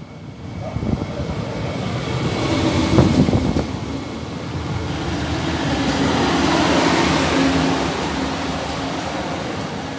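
A large vehicle passing close by: its noise swells over several seconds to a peak about seven seconds in, then eases slightly, with a low steady hum running through it.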